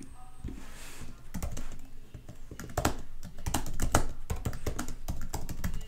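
Typing on a computer keyboard: key clicks in short irregular runs with brief pauses between them.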